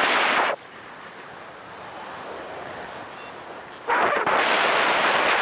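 Wind buffeting a camera microphone in paraglider flight: a loud gust of rushing noise at the start, a quieter steady airflow rush, then another loud gust from about four seconds in.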